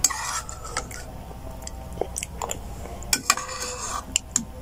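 Eating sounds: a metal spoon clicking and scraping in a plastic bowl of champorado, with chewing between the clicks.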